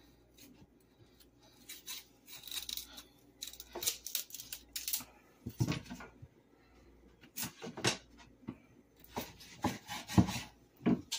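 Stiff dried salted fish being cut and broken into pieces in a stainless steel sink: irregular dry cracks, crunches and scrapes, with knocks against the steel.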